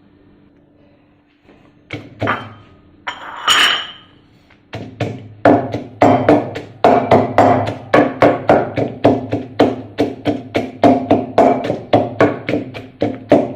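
Pestle pounding in a mortar, crushing garlic, shrimp paste and bird's eye chilies into chili paste. After a few scattered knocks and a brief ringing clatter, it settles into steady strikes, about three a second.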